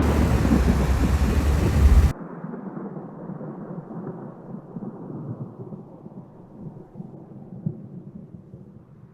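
Thunder: a loud low rumble that cuts off abruptly about two seconds in, followed by a fainter rumble trailing away.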